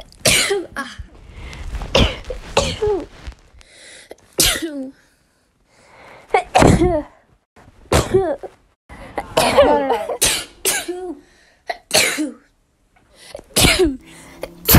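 A person sneezing over and over in a sneezing fit: a dozen or so short, sharp voiced bursts following one another with brief gaps.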